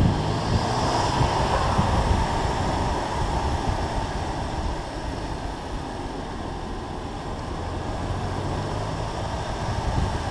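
BMW M2 Competition's twin-turbo inline-six exhaust heard from outside the car, mixed with wind rush on the microphone and tyre noise on the road. The engine note eases off through the middle and builds again near the end.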